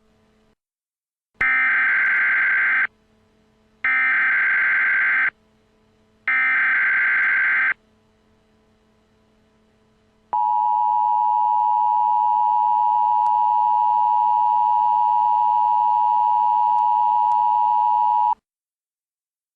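Emergency Alert System SAME header: three identical bursts of warbling digital data tones, each about a second and a half long. About ten seconds in comes the EAS attention signal, a steady two-tone beep lasting about eight seconds, which announces that an alert message follows.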